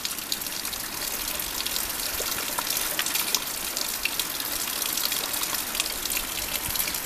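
Steady rushing of floodwater running off fields into ditches, scattered with many short drip-like ticks.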